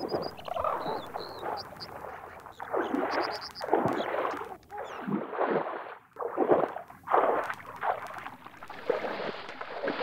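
American bison splashing and thrashing in icy pond water as it struggles to get out, in repeated heavy splashes about once a second.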